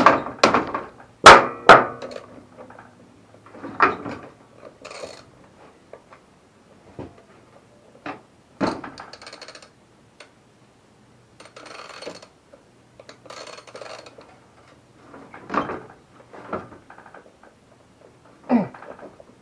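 Hammer blows on the tool that is loosening a lawnmower's blade bolt, which is stuck. Four hard strikes come in the first two seconds, then scattered lighter knocks and some scraping.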